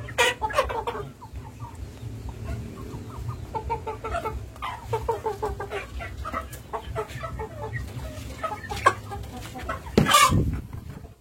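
Short animal calls repeated in quick runs of several a second, with one louder, longer call near the end.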